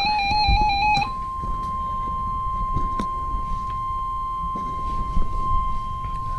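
NOAA Weather Radio alert tones: the last second of a warbling, stepping burst of data tones (the SAME header), then the steady single 1050 Hz warning alarm tone, which marks a new warning about to be read. A low rumbling noise from the radio lies under both.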